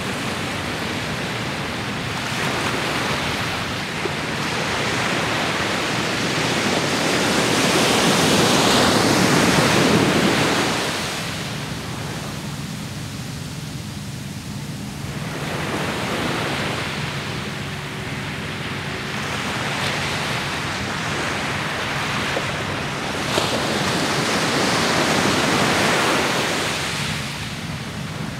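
Ocean surf breaking and washing up on a sandy beach: a steady rush that swells to its loudest about a third of the way in, eases off, and builds again near the end.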